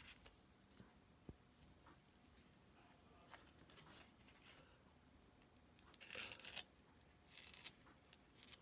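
Faint rustling and scraping of a screen protector's plastic packaging being handled and opened, in short bursts about six and seven and a half seconds in, with a couple of light ticks earlier; otherwise near silence.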